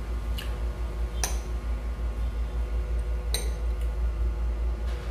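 Cutlery clinking against dishes four times, short light clinks spread across a few seconds, over a steady low rumble.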